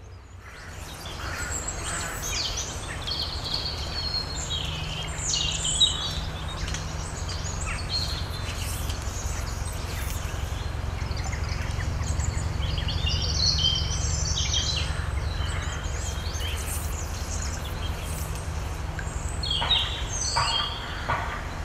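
Small birds chirping and singing in short, scattered phrases over a steady low rumble.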